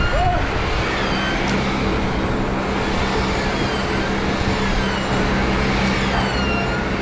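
A machine running steadily, with a low hum and a higher whine that wavers up and down in pitch.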